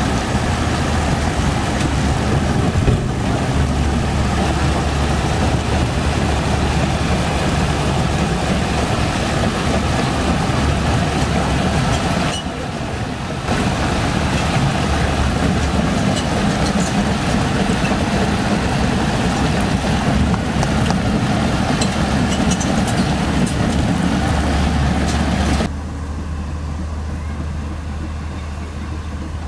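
Komatsu PC130F crawler excavator's diesel engine running steadily with a low hum while the machine tracks and works its boom in shallow river water. About three seconds before the end the sound drops abruptly to a quieter, more distant engine hum.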